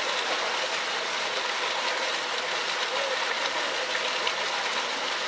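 Steady outdoor background noise: an even, continuous hiss with no distinct events.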